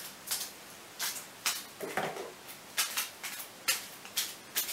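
A string of sharp, irregular clicks and knocks from kitchen things being handled, with a duller knock about two seconds in.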